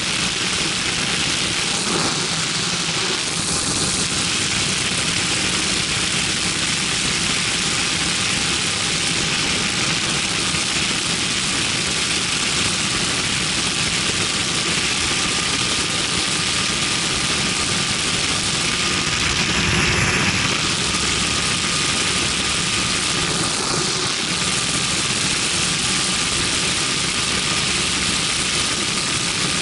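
Hurricane ultralight aircraft's engine and propeller running steadily in cruise flight, under a heavy rush of wind over the microphone. The noise swells briefly about twenty seconds in.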